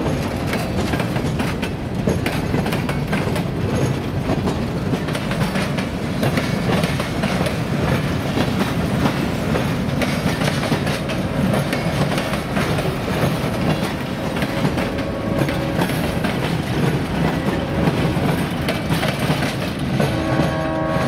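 Freight train of boxcars rolling past, steel wheels clattering steadily over jointed rail.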